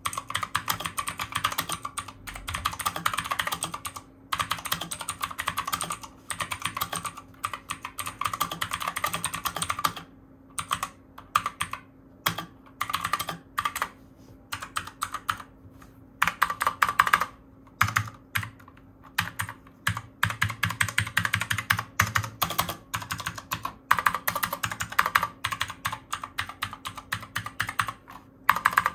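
Typing on an Armaggeddon MKA 7C mechanical keyboard with its stock clicky blue switches: rapid runs of sharp key clicks in bursts, broken by short pauses.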